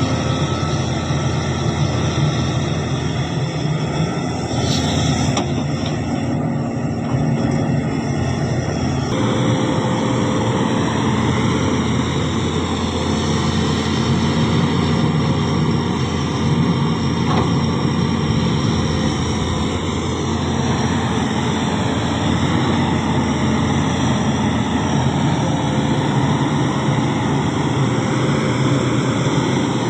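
Heavy diesel engine of an excavator running steadily under working load, with a change in the sound about nine seconds in.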